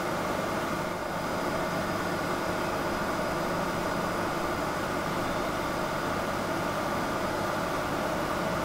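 SNCF BB26000 electric locomotive moving slowly through the tracks: a steady whirring hum with a faint, thin high whine over it, without wheel clacks.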